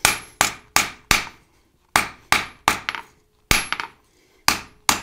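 Hand-hammer blows on a hot steel flat bar lying on an anvil: about eleven blows in quick runs of two to four, with short pauses between runs. Each blow rings briefly.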